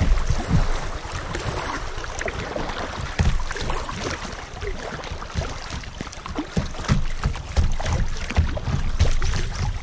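Creek water splashing and gurgling in irregular small splashes around a kayak's hull on a rippling current, with a low rumble of wind on the microphone in the first second.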